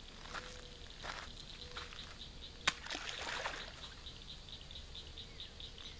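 A small largemouth bass dropped back into the lake: a sharp slap on the water a little under halfway through, followed by a short splash. Insects chirp in a fast, even pulse throughout.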